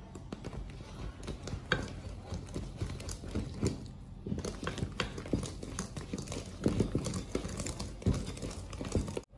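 Wire balloon whisk working stiff butter-cookie dough in a stainless steel bowl: irregular clicks, taps and scrapes of the wires against the metal bowl.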